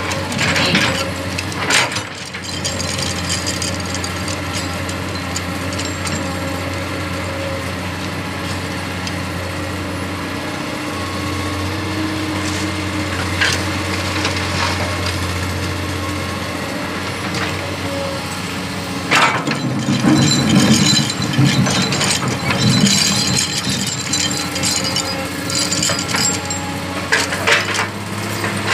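Komatsu PC200 hydraulic excavator's diesel engine running steadily while it digs and loads rock and soil into a dump truck. Sharp knocks of the steel bucket on stone come now and then, and about 19 seconds in there is a louder stretch of rattling and clattering rock that lasts a few seconds.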